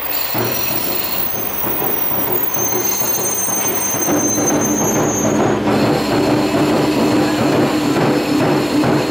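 KiHa 47-series diesel railcar pulling slowly into the platform, with a thin, high brake squeal for a few seconds in the middle. From about four seconds in, a steady low engine hum takes over as it comes to a stop.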